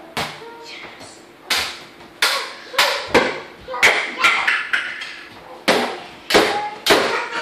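A small toy basketball bouncing and knocking around a room: about a dozen sharp knocks and thuds at uneven intervals.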